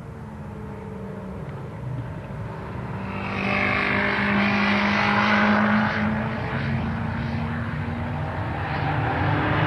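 Vehicle engine running steadily on a race circuit, with a loud rushing noise building up about three seconds in and staying, as of a car passing close at speed or wind on the microphone.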